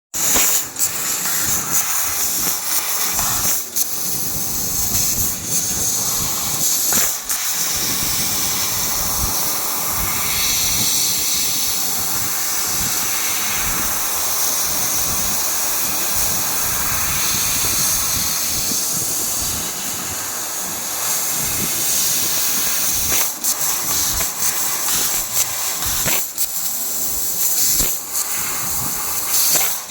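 CNC laser cutting machine cutting mild steel sheet: a steady hiss, broken by short gaps now and then.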